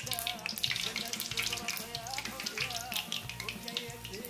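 Battered pangasius catfish pieces sizzling and crackling as they fry in hot oil, with fine rapid pops throughout. Background music with a wavering melody plays over it.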